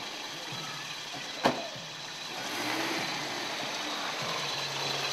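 Pickup truck engine running steadily, with a car door slammed shut once about a second and a half in; the engine noise grows a little louder after that.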